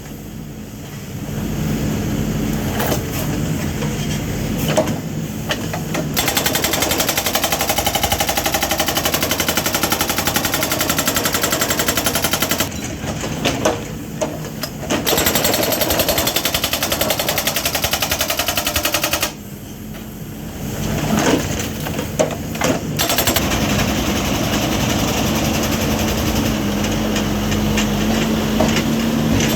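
Hydraulic breaker hammer on an MST backhoe loader pounding in rapid blows, in three long bursts separated by short pauses. During the pauses the loader's diesel engine keeps running.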